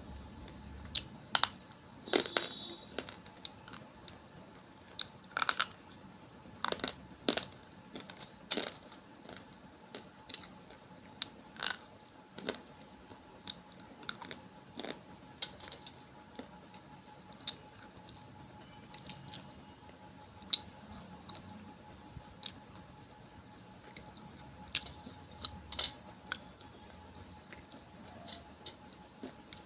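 Close-up crunching: irregular sharp cracks and crackles of something brittle being bitten or crushed, sometimes in quick clusters, sometimes with pauses of a second or two between. A faint steady hum runs underneath.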